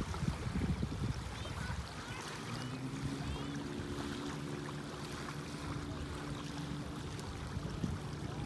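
Distant motorboat engine with a steady low drone that comes in about two seconds in. Under it are small waves lapping at the shore, and wind rumbling on the microphone in the first two seconds.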